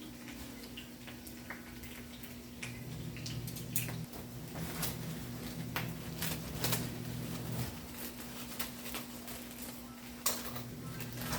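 Kitchen utensils clinking and tapping against dishes or a pan, in scattered sharp knocks, over a steady low hum.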